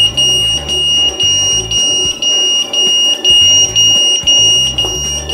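DG185 keypad's built-in anti-tamper alarm sounding: a loud, continuous high-pitched piezo tone with a slight pulse about twice a second, set off by its light tamper sensor detecting vandalism. Background music plays underneath.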